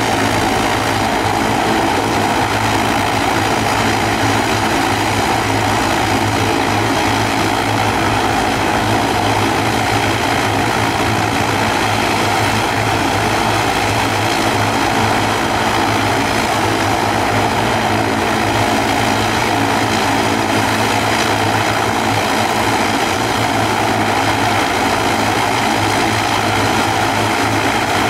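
Twin Pratt & Whitney PW127 turboprop engines of an ATR 42-500 running steadily on the ground: a constant propeller drone with a high whine over it, holding one setting with no rise in power.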